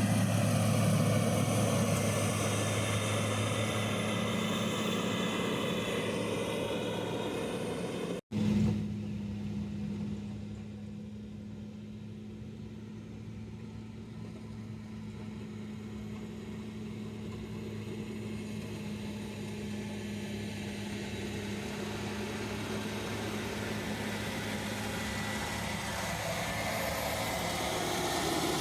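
Heavy earthmoving machine's engine running steadily with an even hum. About eight seconds in, the sound cuts out for an instant, and afterwards it goes on more quietly.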